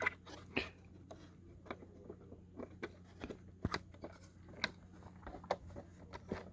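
Small plastic and metal clock parts clicking and tapping under the hands as the clock motor is pushed back into its gearbox, a dozen or more irregular light clicks over a faint steady low hum.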